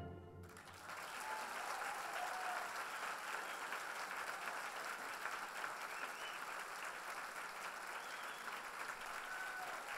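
Audience applauding steadily, starting about half a second in as the last chord of the orchestral music dies away.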